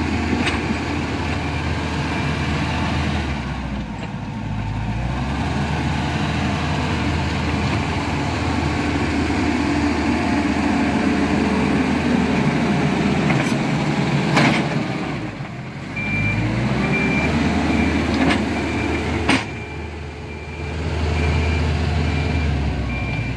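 Heavy diesel earthmoving machines at work on road construction, engines running under load, easing off briefly twice and then revving back up. A reversing alarm beeps in a steady pattern near the start and again through the last third, with a few sharp metallic knocks.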